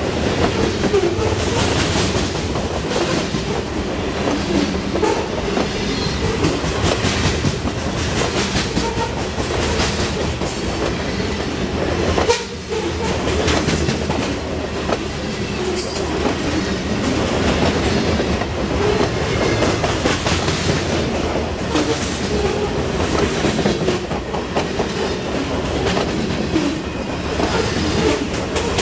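Freight train's covered grain hopper cars rolling past close by: steady noise of steel wheels on rail, with a short dip in level about twelve seconds in.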